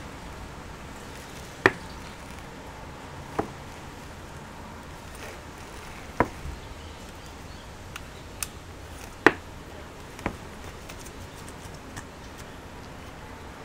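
Scattered sharp clicks and light knocks, about seven spread over twelve seconds, from small laptop parts being handled and pressed into place by hand, over a steady background hiss.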